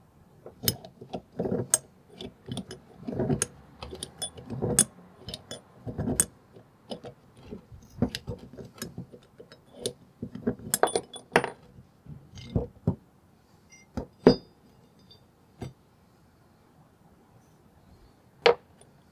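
Rusty iron parts of a Dunlap bench vise clinking and knocking together as they are taken apart by hand, with a steel rod rattling against the base. The clinks come thick and fast for most of the time, then thin out to a few, with one sharp clink near the end.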